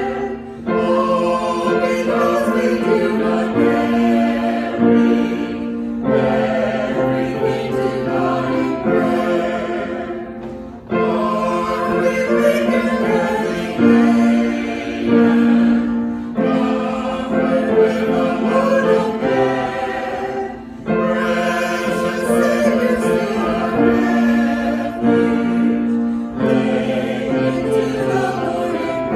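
A choir singing a sacred piece in phrases of about five seconds, with a short break between each.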